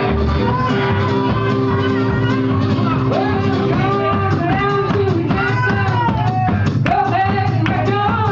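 Live band music: guitar over steady low bass notes, with a melody line of bending, sliding notes coming in about three seconds in.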